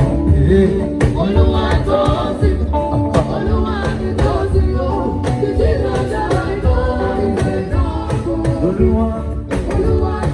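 Live band music with singers, in a gospel style, over a steady drum beat, played through a public-address system.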